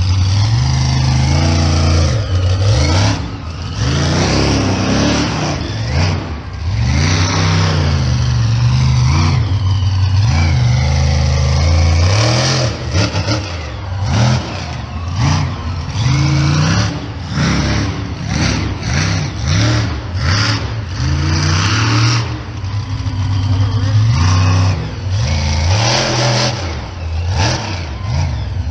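Monster truck engine revving hard, its pitch climbing and falling again and again with short dips between runs.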